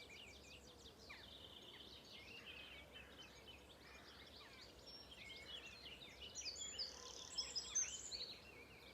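Faint outdoor birdsong: several small birds chirping and trilling over a soft background hiss, busier and a little louder in the second half.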